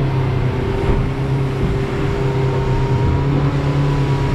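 Boat engine running steadily under way, a constant low hum over a steady rushing noise.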